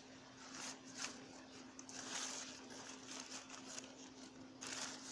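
Intermittent rustling and scraping as an umbrella's fabric canopy and metal frame are handled, in short scratchy bursts, the loudest about two seconds in and another near the end, over a faint steady hum.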